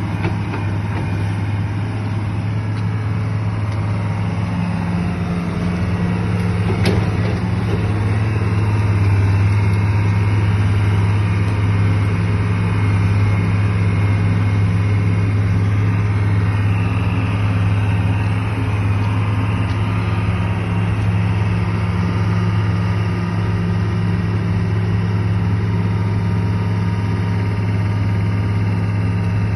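Excavator engine running steadily with a deep, even hum, getting slightly louder about nine seconds in. There is a single sharp click about seven seconds in.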